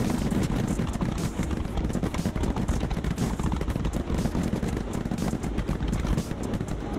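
Fireworks display with many shells bursting at once: a dense, continuous run of rapid crackling and popping.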